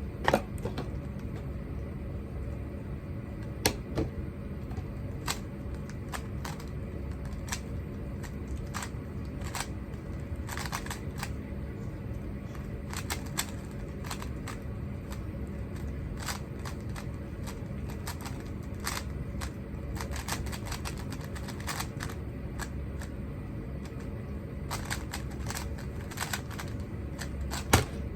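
Rubik's cube being turned fast during a timed solve: rapid, irregular plastic clicks of the layers over a steady low hum. A louder slap near the end, as the hands come down on the stackmat timer to stop it.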